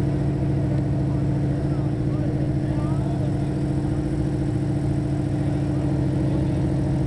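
An engine running steadily at idle, a constant hum at one fixed pitch, with faint voices in the background.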